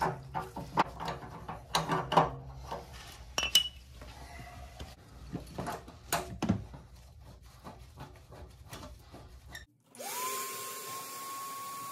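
Hand-tool work on metal: irregular clicks, knocks and short scrapes. About ten seconds in, a motor spins up to a steady whine with a hiss.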